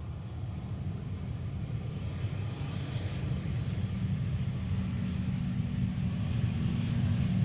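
Jet airliner on approach, its engine rumble growing steadily louder as it nears, with a steady low hum coming in about five seconds in.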